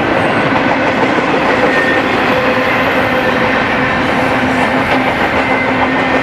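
BNSF double-stack intermodal freight train's container cars rolling past: a loud, steady rolling noise of steel wheels on rail.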